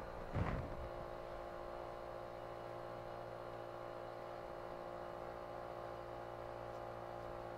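Steady machinery hum in a boat's engine room, made of several even tones, with a brief knock about half a second in.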